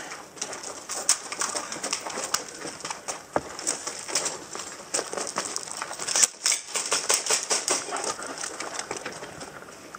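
Airsoft gunfire in close quarters: many scattered sharp clicks and snaps of electric airsoft guns firing and BBs striking the barricades, coming in irregular bursts.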